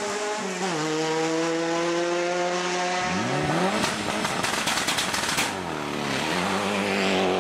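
Rally car engines at full cry: first a car held at high revs through a bend, then a Mitsubishi Lancer Evolution IX rally car revving hard and pulling away from the stage start, its engine rising sharply in pitch with a burst of rapid sharp cracks before settling into a steady note.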